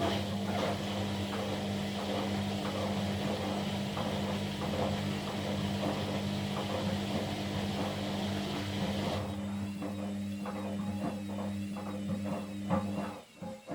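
Kunft washing machine running with a steady motor hum and a wavering whine above it. The hum cuts off suddenly near the end, followed by a few scattered clicks and knocks.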